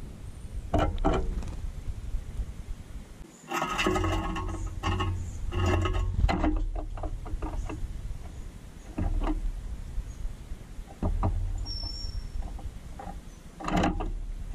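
Birds clinging to and feeding at a wire suet cage right against the camera: claws scraping and bills tapping on the metal, busiest in the first half. Near the end a gray catbird beats its wings close by as it flies off. A low rumble runs underneath.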